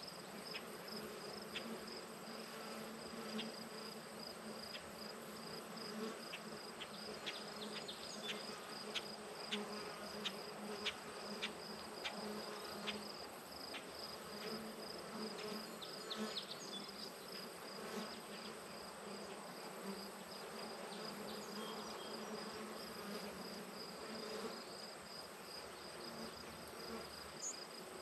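Bees buzzing steadily over the flowers, with a continuous high-pitched insect trill above them and scattered faint clicks.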